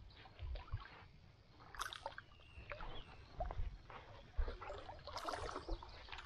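Water splashing and lapping in irregular small strokes around a small paddled boat, with a low rumble underneath.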